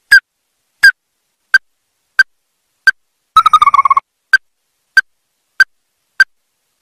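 Ruddy-breasted crake calling: a steady series of short, sharp single notes about every two-thirds of a second, broken about halfway through by a quick, slightly falling trill.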